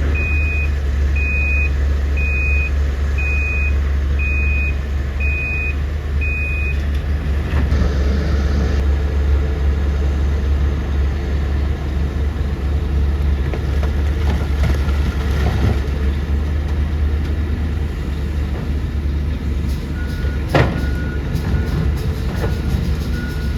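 Heavy diesel earthmoving machine running steadily with a deep, loud drone. A warning alarm beeps about once a second for the first six seconds, then stops. A single sharp knock comes near the end.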